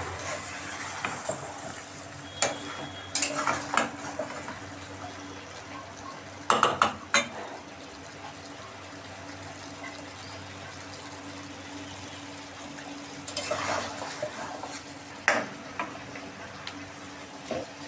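A spoon stirring and scraping in a metal cooking pot of chicken and potato curry, with a steady low sizzle underneath. It gives sharp clinks against the pot now and then, in small clusters.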